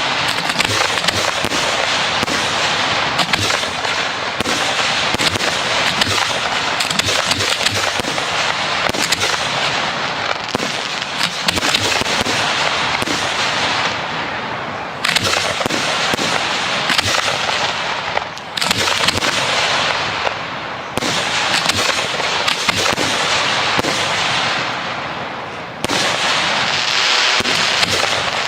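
Professional fireworks display firing: a dense, continuous barrage of bangs and crackling. It dips briefly several times, and each dip is broken by a sudden fresh volley.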